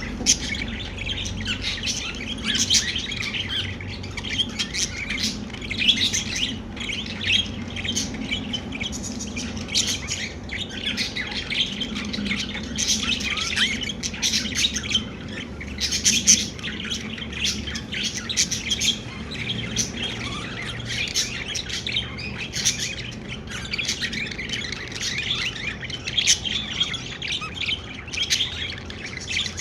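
Pet budgerigars chirping and warbling continually, with short chirps and chattering overlapping throughout and now and then a harsher squawk.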